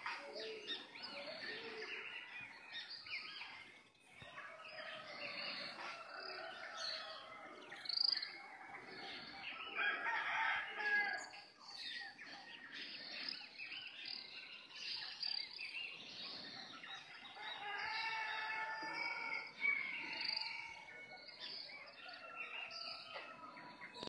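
Dawn chorus: many birds chirping and twittering continuously and overlapping, with roosters crowing several times among them.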